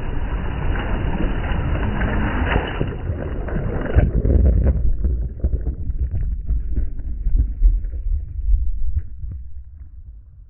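Sea waves washing, with wind buffeting the microphone. The wash cuts off abruptly about four seconds in, leaving a low wind rumble with faint crackles that fades near the end.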